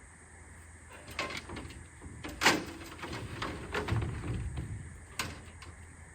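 A few knocks and clatters, as of things being handled or a door or lid being moved, the loudest about two and a half seconds in, with a low rumble a little later.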